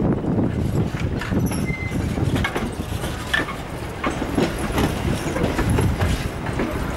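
Passenger train coaches rolling slowly past close by: a steady low rumble of wheels on rail with irregular clacks and knocks from the wheels over rail joints.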